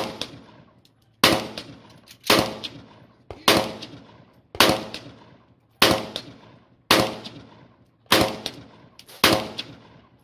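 AK-pattern rifle fired in slow, steady single shots, nine about a second apart, each followed by a fading echo and the pinging ring of a struck steel target.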